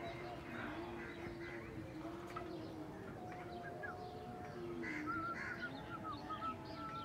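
Outdoor birds chirping and calling, with short quick chirps that grow busier in the second half. Underneath runs a faint, long, slightly wavering humming tone.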